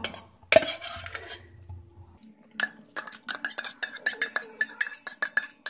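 A steel bowl knocks once on a pressure cooker and clam meat is scraped into the pot. Then a steel spoon stirs the rice, clinking against the pot about four times a second with a short metallic ring.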